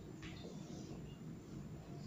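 Quiet room with a steady low hum and one faint tap of a high-heeled shoe on the hard floor about a quarter second in.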